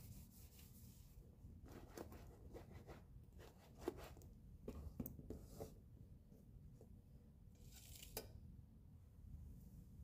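Faint handling sounds: a microfiber cloth rubbing over a wooden tabletop, then a run of soft clicks and knocks as a leather bag is moved and set down on it.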